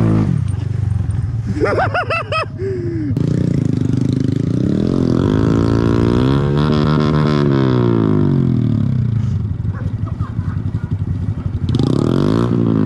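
Honda Grom mini motorcycle's single-cylinder engine revving, its pitch climbing and falling in long sweeps over several seconds. A brief high wavering sound comes about two seconds in.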